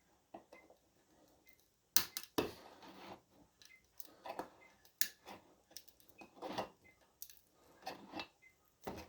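Irregular clicks, knocks and short scrapes of small tools and parts being picked up and set down on a workbench, with two sharper knocks about two seconds in.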